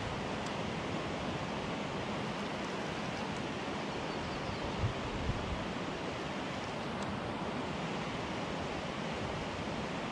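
Steady rush of a fast-flowing river, with two brief low thumps about five seconds in.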